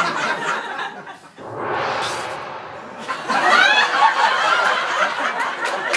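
Audience laughing and chuckling, the laughter swelling and growing louder about three seconds in.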